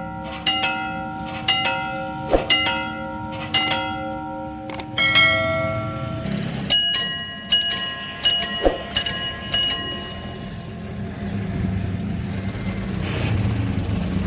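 Railway level-crossing warning siren with a bell-like tone, ringing in repeated metallic strikes about two a second, each strike lingering; its tone pattern changes about five seconds in. The strikes stop for the last few seconds, leaving a low rumble.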